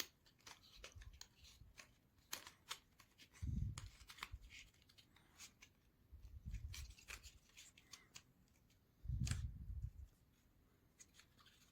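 Faint scattered clicks and light taps of small basswood model-kit parts being handled and pressed into place, with three soft low thumps along the way.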